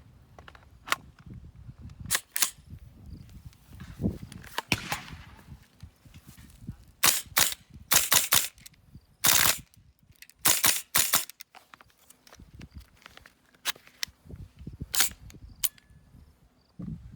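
Airsoft rifle with a 7075 aluminium receiver firing single shots at an irregular pace, some in quick pairs or clusters, as a check that it still works after being hit by a shotgun blast.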